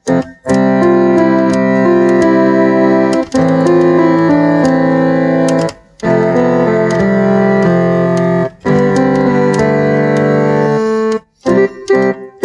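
Music on a keyboard: long chords held for a few seconds each, with short breaks between them and quick stabbing chords near the end.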